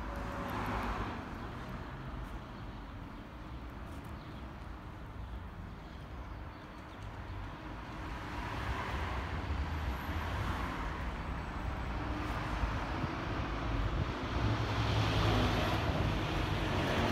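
City road traffic: a steady rumble of cars, with swells as vehicles pass, growing louder near the end.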